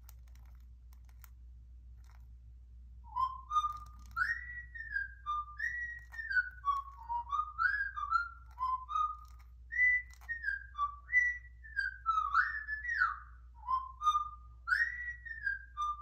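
Cockatiel whistling a tune: a string of clear whistled notes sliding up and down, starting about three seconds in, with the same melodic phrase coming round again.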